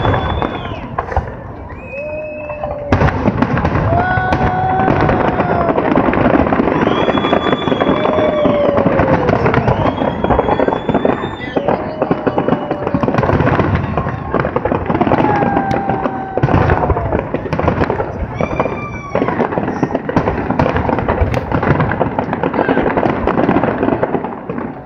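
Aerial fireworks display: shells bursting in dense, continuous crackling and booming, briefly quieter about two seconds in, with spectators' voices calling out over it.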